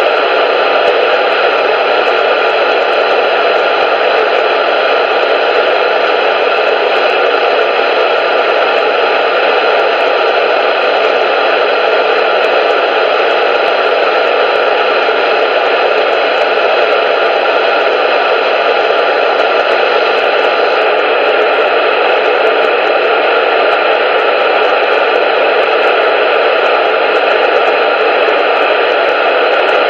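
Loud, steady radio static: an even hiss that does not change.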